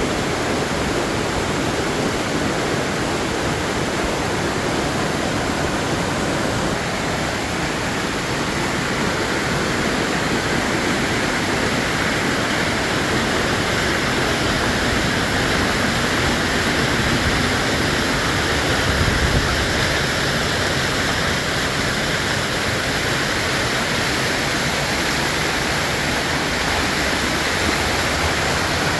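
Waterfall: water pouring and splashing in a steady, dense rush with no breaks.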